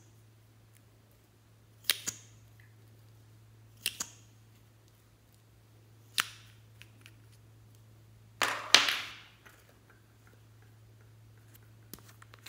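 Sharp plastic clicks from small cosmetic tubes being handled and uncapped, a liquid lipstick and a concealer tube, with two quick double clicks and a single click, then a louder sound lasting most of a second about eight and a half seconds in. A faint steady low hum sits underneath.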